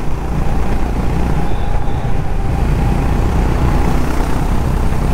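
Motorcycle riding at speed on an open road: a steady engine drone buried in heavy wind rush on the microphone.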